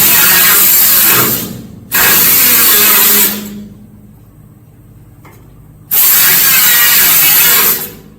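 Handheld power grinder working sheet steel in three loud bursts, the first ending about a second and a half in, the second short and the third starting near six seconds. Each burst dies away as the tool spins down.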